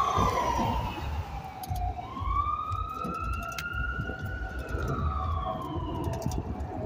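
Emergency vehicle siren in a slow wail: its pitch falls, rises again over about two seconds, then falls once more, over a low rumble.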